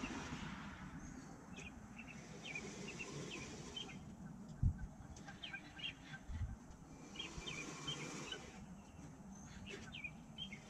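Small birds chirping: many short, high sweeping notes repeated throughout, with a brief low thump about four and a half seconds in.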